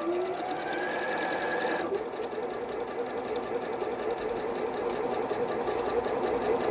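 Janome 3160 sewing machine stitching a seam. Its motor pitch rises as it picks up speed over about the first second, then the machine runs steadily.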